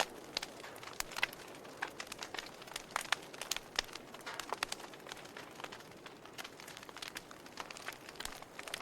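Wood fire crackling in a fireplace: irregular sharp pops and snaps, several a second, over a soft steady hiss of burning.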